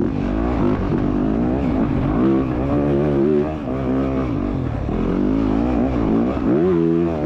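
Motocross bike's four-stroke engine heard close up on the bike, revving up and down as the rider accelerates, shifts and rolls off through the turns. The pitch climbs and falls again and again, with a sharp rise near the end.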